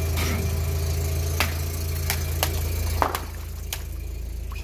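Car engine idling with a steady low hum, which drops a little about three seconds in. Over it come about five sharp cracks and snaps of things giving way under the tyre.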